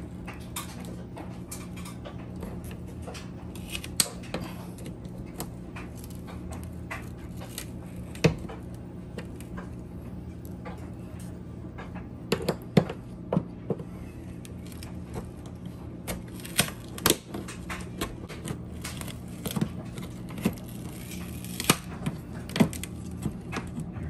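Plastic trim-removal tools prying at a chrome bowtie emblem stuck to a vehicle's painted body: irregular sharp clicks and taps of plastic on plastic over a steady low hum. The emblem seems to be glued on and comes loose near the end.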